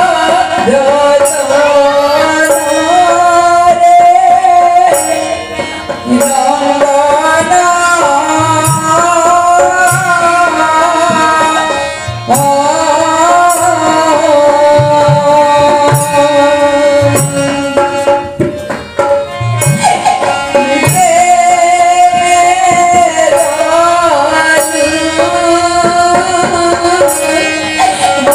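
A slow, sorrowful song sung through a microphone and PA, in long held phrases with short breaks between them. Hand drums such as tabla and a sustained melodic instrument accompany it.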